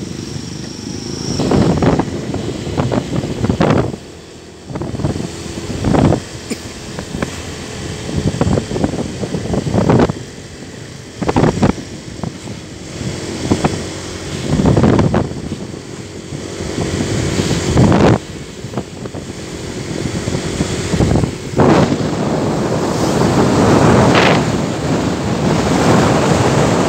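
Wind buffeting the microphone of a moving motorcycle, surging irregularly every second or two, over the steady drone of the engine and road noise.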